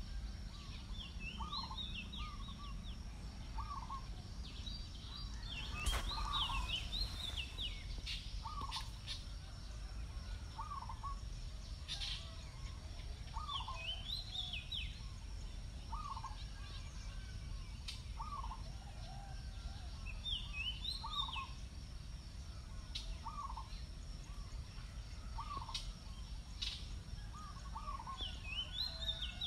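Birds calling: one repeats a short hooked note about every two seconds, while another gives a quick run of high notes every several seconds, over a low steady rumble.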